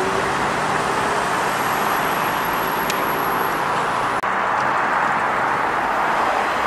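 Steady street traffic noise with a car engine running under it as a Mercedes-AMG GT R drives off. The sound drops out for an instant about four seconds in.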